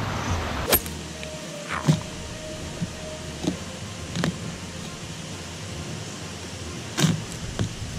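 A small steel spade digging into soil: a handful of sharp scrapes and thuds a second or more apart, over a steady rushing from the river nearby.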